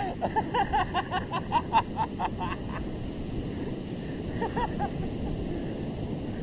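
Steady rush of ocean surf with wind on the microphone. Over it comes a quick run of about a dozen high, pitched yelping notes, roughly five a second, and a shorter run of three or four more about four and a half seconds in.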